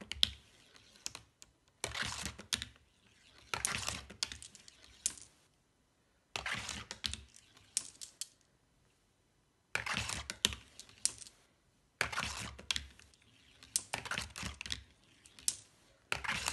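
Glass marbles sent one at a time down a cardboard marble run. Each rolls with a rattling rumble through the track and loop, then clacks against the marbles already stacked at the end of the channel. There are about eight runs, a second or two apart, with a longer gap near the middle.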